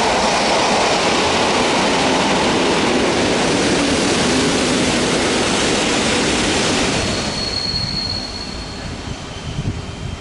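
An EN57 electric multiple unit runs close past a platform, with a loud, steady rumble of wheels on the rails. The rumble drops away after about seven seconds, and a brief thin, high squeal follows.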